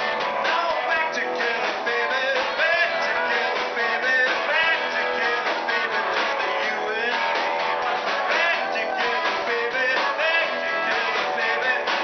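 Live rock band playing, with drum kit and electric guitar.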